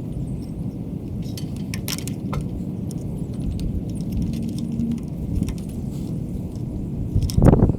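Wind rumbling on the microphone, with scattered small metallic clinks and a louder knock near the end.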